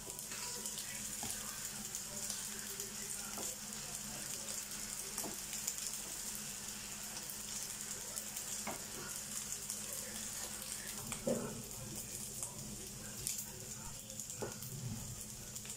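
Cooked rice sizzling and crackling in a hot nonstick frying pan as its bottom crisps into scorched rice. A wooden spatula gives a few light knocks against the pan, the clearest about 11 seconds in.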